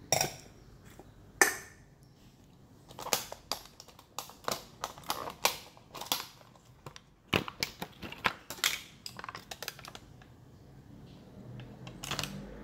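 Plastic food containers and packaging being handled: an irregular run of sharp clicks, taps and crackles, with the plastic lid coming off a cream cheese tub.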